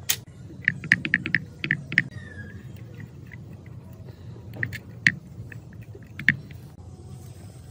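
Metal parts of a rusty overlock sewing machine clicking and clinking as they are handled: a quick run of sharp metallic clicks about a second in, then a few single clicks spaced out near the middle and later.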